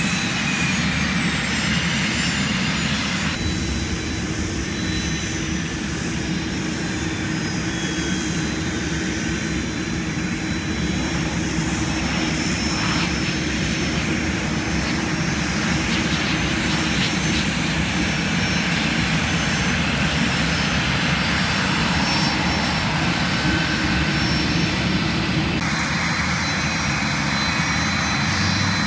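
Business jet and turboprop engines: a steady engine whine over a broad rumble. The sound changes abruptly about three seconds in and again near the end.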